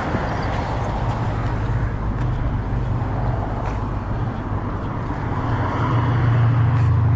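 Street traffic: a steady low engine hum with road noise, swelling louder near the end as a car draws close.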